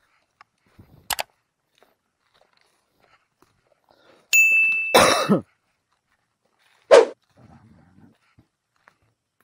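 Subscribe-button animation sound effects: a short click about a second in, a bright bell-like ding with a falling swoosh about four to five seconds in, and another short hit about seven seconds in. Between them it is nearly silent.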